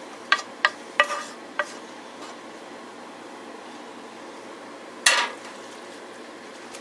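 Cookware clinking as a nonstick skillet and wooden spoon knock against a glass casserole dish while zucchini noodles are scraped in: four short ringing clinks in the first second and a half, then one louder clink about five seconds in.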